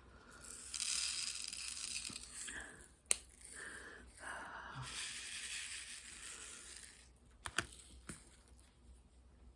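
Rustling, crinkling handling noise in two stretches of a few seconds each, with a few sharp clicks near the middle and near the end.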